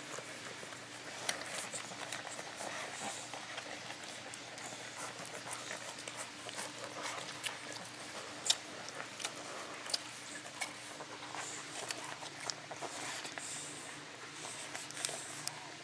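Boxer puppies nursing from their mother: irregular wet sucking and smacking clicks, with a low steady hum under them.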